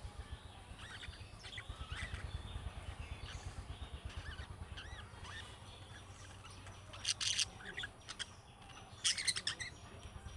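Budgerigars chirping and warbling in short upward-curving calls, with two louder bursts of shrill chatter about seven and nine seconds in, over a steady low hum.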